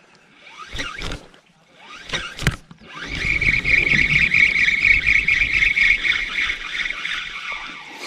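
Spinning reel cranked fast on a lure retrieve: a steady high gear whir from about three seconds in until near the end, after a few short clicks and rustles of handling.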